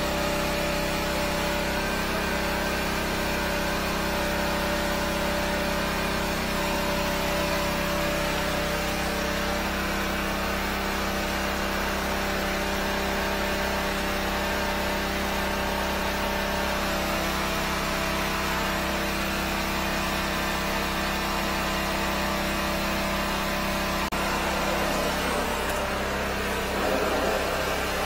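13-horsepower high-pressure sewer jetter's engine running steadily under load while jetting a drain line. Near the end its tone shifts and a louder rushing sound comes in.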